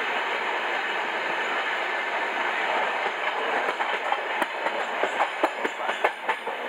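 Passenger train running at speed, heard from inside the carriage as a steady rushing rumble of wheels on rail. About halfway through, a rapid run of clacks and knocks from the wheels sets in.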